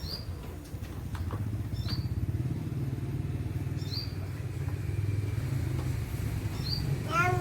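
A small engine runs steadily with a low, fast-pulsing rumble. A bird chirps briefly every second or two over it, and a louder rising call begins near the end.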